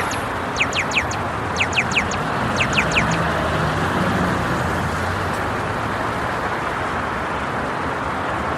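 Steady street traffic noise, a continuous hum of passing cars. Over it, in the first three seconds, come quick groups of three or four high, falling chirps about once a second.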